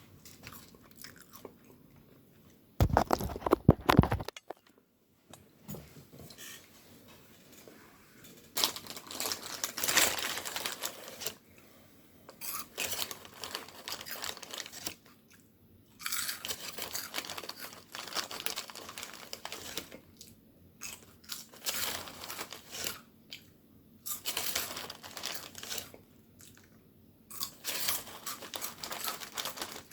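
A person chewing and biting crunchy food close to the microphone, in irregular crunching bouts. There is one louder burst of handling noise about three seconds in.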